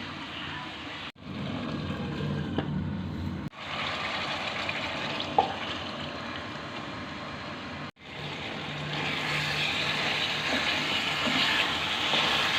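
Beef bistik cooking in a pan, a steady sizzling and bubbling that breaks off abruptly three times where clips are joined, louder again in the last few seconds.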